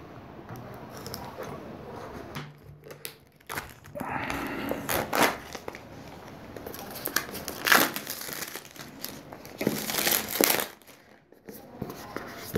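Polythene shrink-wrap on a smartphone box being slit and peeled off, crinkling and tearing in irregular bursts, loudest a little past halfway and again about ten seconds in.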